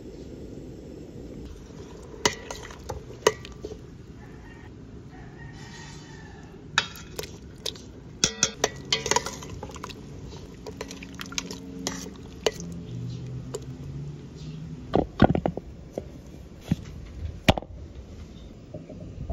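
Kitchen clatter: scattered sharp clinks and knocks of utensils and ingredients against a metal pot, with some splashing of liquid. The loudest knocks come about three-quarters of the way through.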